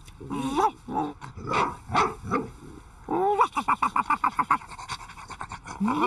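Cartoon dog panting: a few separate huffs at first, then quick, rhythmic panting from about three seconds in.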